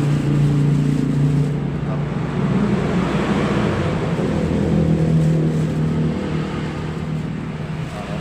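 An engine running steadily with a constant low drone, with a swell of louder noise around the middle.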